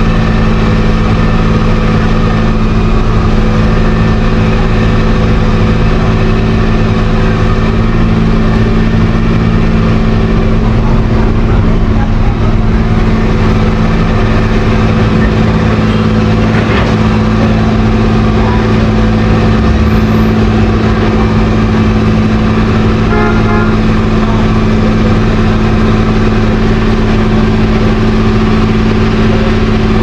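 Diesel engines of a road paver and the dump truck feeding it, running steadily at constant speed with an unchanging hum.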